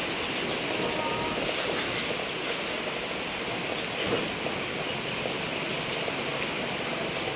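Steady rain falling, a dense even patter of many drops.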